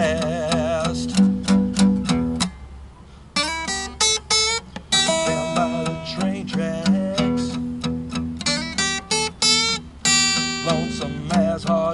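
Acoustic guitar playing a blues instrumental break: picked treble notes over a repeated low bass note, thinning out briefly about two and a half seconds in before picking up again.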